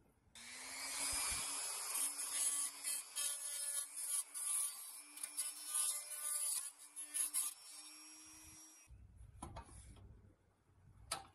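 Handheld rotary tool with a small bit grinding at the end of a toy truck's steel wheel axle: a high-pitched whine and grinding rasp that starts about half a second in and cuts off suddenly near nine seconds. A few light clicks of metal parts being handled follow.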